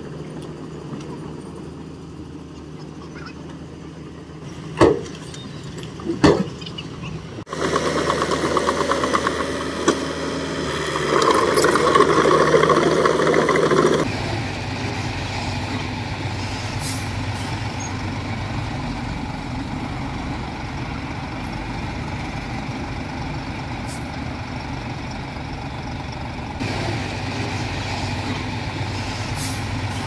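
Diesel engines of a bulldozer and dump trucks working, with a few sharp knocks in the first quarter and a louder rattling stretch before halfway. The sound changes abruptly about a quarter of the way in and again about halfway.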